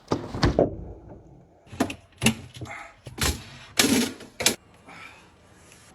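Irregular plastic clunks, knocks and rattles from refrigerator interior parts (shelves, drawers, door fittings) being handled and pulled out as the fridge is taken apart.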